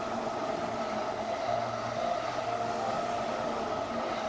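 Battery-powered Plarail toy trains running on plastic track: a steady whir of their small electric motors mixed with the rattle of the wheels on the track.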